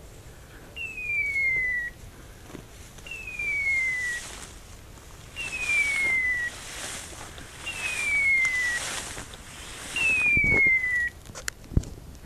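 A hunting dog's beeper collar sounding a single falling electronic beep about every two and a quarter seconds, the run-mode signal that tells the hunter the dog is moving.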